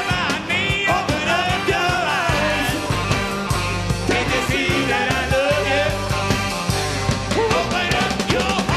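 Live rock song: a lead voice singing over a full band with a steady beat.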